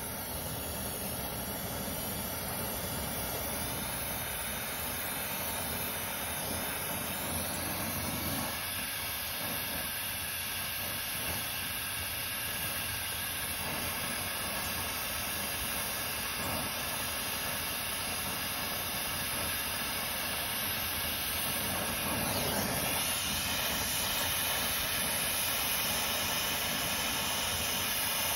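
Oxy-fuel brazing torch flame burning with a steady hissing rush as it heats the copper line joints of a heat pump's reversing valve; it gets a little louder about two-thirds of the way through.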